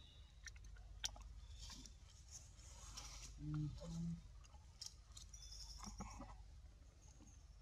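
Faint rustling and small clicks from macaques shifting among dry leaves on grass, with two short low hums, one right after the other, about three and a half seconds in.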